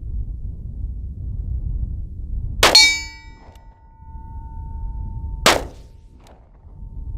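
.45 Long Colt Ruger Vaquero single-action revolver fired twice, about three seconds apart. The first shot is followed by a ringing clang that lasts several seconds, a steel target struck; the second shot has no ring, a miss.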